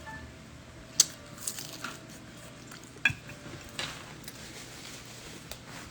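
Cutlery clinking against a plate while eating, a few sharp clinks with the loudest about a second in and another about three seconds in, and fainter light taps between them.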